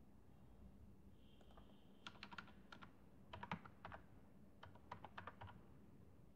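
Faint computer keyboard typing: quick runs of keystrokes in three short bursts, the first about two seconds in.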